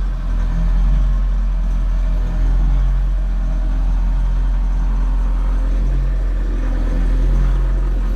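Bobcat Toolcat 5600's turbocharged Doosan diesel engine running steadily as the machine drives, heard from inside the cab as a low drone.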